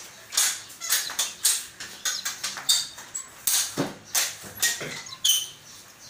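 Mop pushed back and forth over a smooth floor, about two swishing strokes a second, with a few short squeaks.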